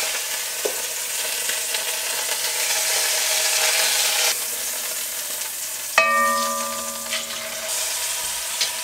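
Seasoned nutria meat sizzling in hot olive oil in a cast iron pot, with small clicks as it is moved about. About six seconds in, a sharp metallic clink rings on for over a second as a knife strikes the pot.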